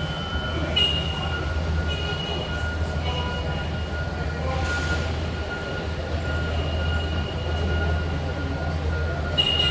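Factory-floor machinery hum in a vehicle assembly plant: a steady low drone with a steady mid-pitched tone. Over it, a high electronic tone sounds in short pieces, a few times early on at about one a second, then again near the end.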